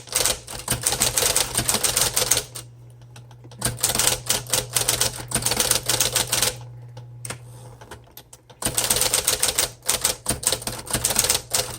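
1958 Smith Corona Electric portable typewriter being typed on fast, in three runs of rapid keystrokes with short pauses between, over a steady low hum.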